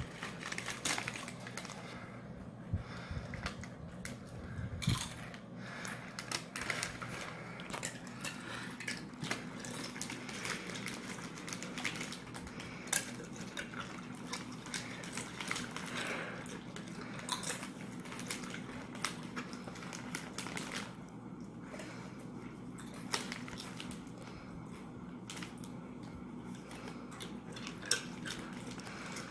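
A plastic chip bag crinkling and chips being crunched, in irregular crackles and clicks throughout, with the dogs chewing the chips they are handed. A low steady hum runs underneath.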